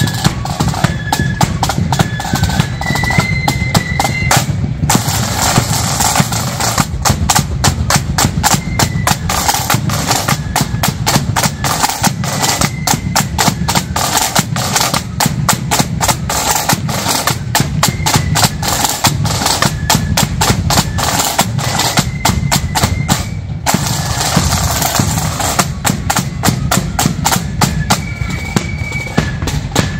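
Marching flute band playing: rapid snare drum rolls and a steady bass drum beat, with a high flute melody that is clearest in the first few seconds and heard only in snatches after that.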